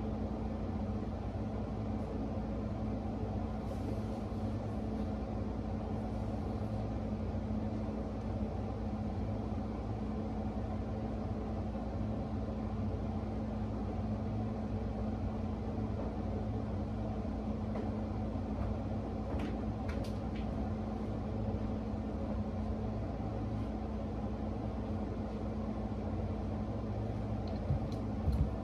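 Steady low mechanical hum holding one constant tone, with a few faint clicks.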